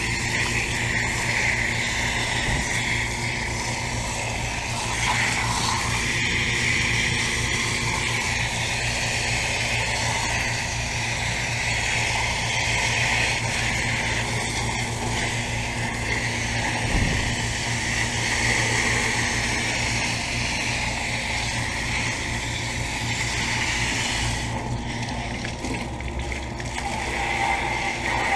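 Central air conditioner condenser unit running with a steady electrical hum, while water sprays in a hiss that varies in strength and stops briefly near the end.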